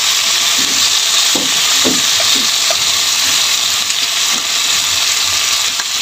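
Pork ribs searing in hot oil with garlic in a frying pan: a steady sizzle.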